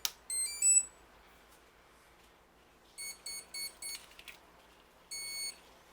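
Electronic power-up beeps from radio-control multirotor electronics: a quick rising run of tones, then five short beeps and one longer beep near the end.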